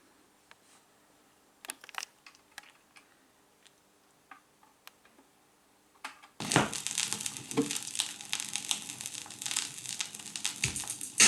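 A few faint clicks from the BSR P-181 turntable's mechanism. About six seconds in, the stylus sets down on the record and a loud, dense crackle of surface noise and pops follows from the run-in groove, before the music starts.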